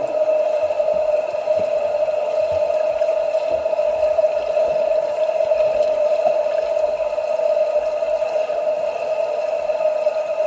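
A steady hum holding one pitch without change, over an even wash of noise.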